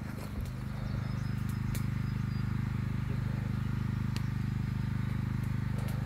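A motor running steadily, giving a low hum with a fast, even pulse. A few sharp clicks and a brief high bird chirp can be heard over it.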